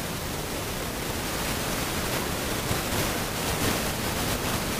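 Steady wind rush on the microphone of a motorcycle moving at road speed: an even hiss with no clear engine note.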